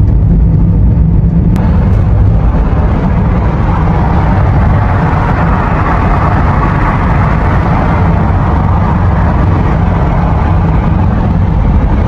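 Road noise inside a moving taxi's passenger cabin: a steady low rumble of engine and tyres with a hiss that swells in the middle and eases again.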